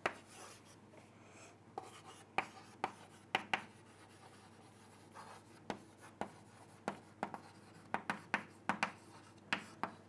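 Chalk writing on a chalkboard: a quiet, irregular string of sharp taps and short scratches as each letter is written.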